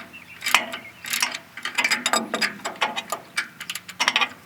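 Ratchet wrench clicking in short runs of pawl clicks as it is worked back and forth to loosen an engine's oil drain plug.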